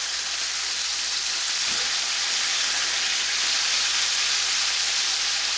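Breaded venison steaks sizzling steadily as they pan-fry in hot oil, crisping on the outside and nearly done.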